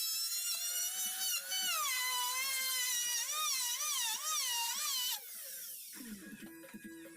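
Handheld electric power tool motor whining at high speed, its pitch wavering up and down as it works into wood, then stopping about five seconds in.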